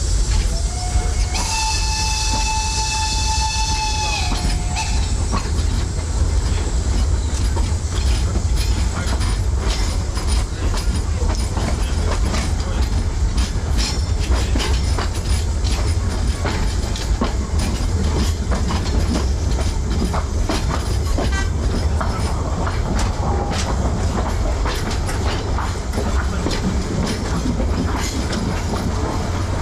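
Narrow-gauge steam train running: about a second in, the locomotive's steam whistle sounds for some three seconds, sliding up in pitch at the start and back down at the end. Under it and after it runs a steady rumble with the clicking of the carriage wheels over the rail joints.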